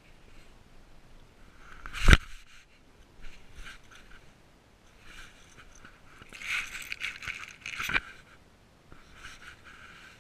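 Dry grass and dead leaves rustling and scraping against a GoPro worn by a cat as it pushes and sniffs through a brush pile. There are two sharp knocks against the camera, a loud one about two seconds in and another near eight seconds.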